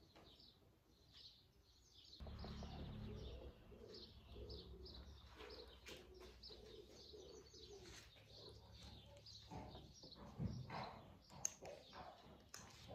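Faint birds chirping, with a pigeon cooing in short repeated calls through the middle, over a low steady hum that starts about two seconds in. A few light clicks come near the end.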